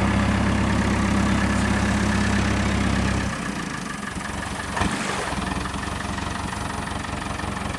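David Brown tractor engine running steadily close by, its low hum dropping to a quieter level a little over three seconds in. A single short knock near the middle.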